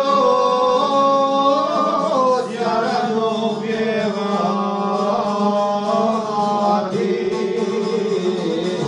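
Two men singing a folk song together in long, wavering held notes, accompanied by a strummed šargija (long-necked lute).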